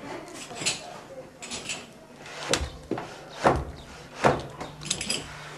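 Wooden treadle floor loom being worked for wool weaving: light clacks and rattles, then three heavy wooden knocks a little under a second apart.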